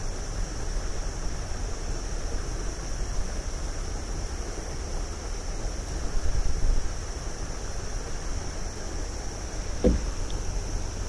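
Wind rumbling on the action-camera microphone, with a louder gust about six seconds in. A steady high-pitched whine runs underneath, and there is a single knock near the end.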